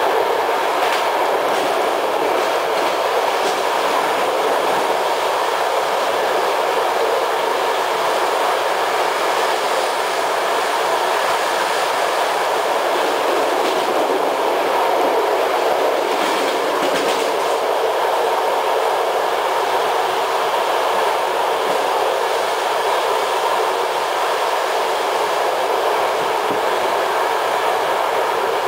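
Passenger carriage of a train running at speed, heard from inside: a steady rumble of wheels on the rails, with a few clicks over rail joints about a second in and again around the middle.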